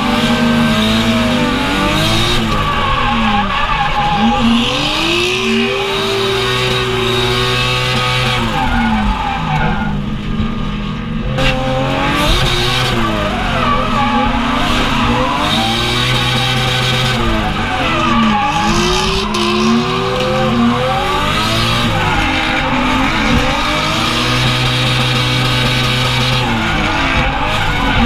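Drift car's engine heard from inside the cabin, revving up and down again and again while the car is held sideways, with its tyres squealing and skidding.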